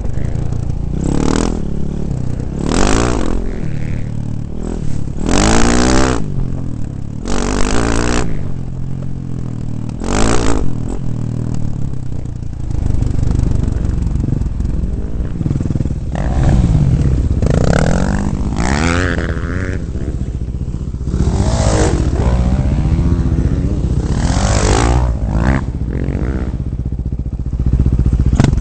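2009 KTM 450 dirt bike's single-cylinder four-stroke engine under way, its revs rising and falling continuously, with repeated short gusts of wind noise on the microphone.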